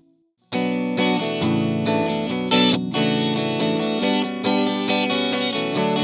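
Electric guitar played through a chorus/vibrato pedal and a tube amp, starting abruptly about half a second in after a moment of silence. It plays a quick run of shifting notes and chords with a shimmering modulated tone.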